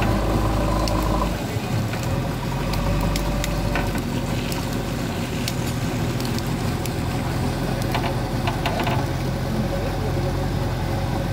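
JCB 3DX backhoe loader's diesel engine running steadily, its note dropping a little about a second in, with scattered sharp clicks and knocks over it.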